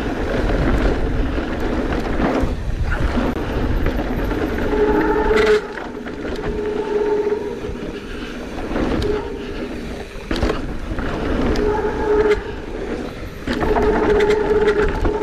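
Mountain bike rolling down a dirt trail: wind rushing over the microphone and tyre rumble, with a steady humming tone that cuts in and out several times and a few sharp knocks.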